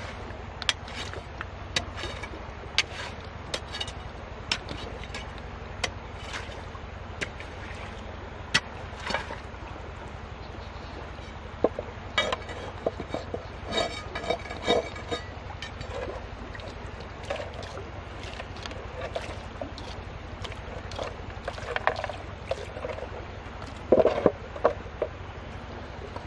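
An iron digging bar striking and prying into rocky clay and stones: irregular sharp knocks about once a second, a scraping spell in the middle, and duller thuds as lumps of clay are dropped into a wooden gold pan. The loudest thuds come near the end.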